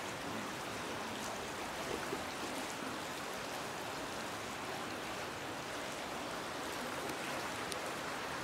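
Steady rush of a river's flowing current over riffles.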